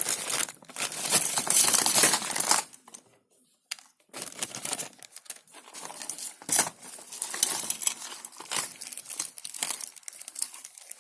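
Plastic bag of an electronics kit crinkling and rustling as it is opened and the parts are pulled out. The crinkling is loudest for the first few seconds, stops for about a second, then comes back on and off.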